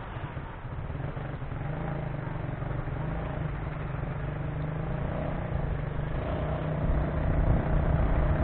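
Steady low rumble of city street traffic, growing louder near the end.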